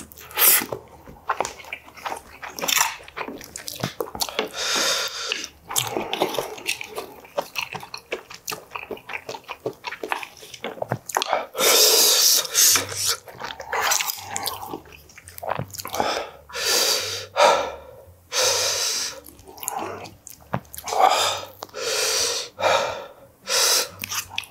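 Close-miked eating sounds of braised stingray and rice: wet chewing and smacking mouth noises and breaths through the nose, with short clicks of chopsticks and a spoon on the dishes.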